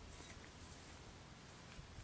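Near silence: faint outdoor background hiss with a couple of very soft ticks.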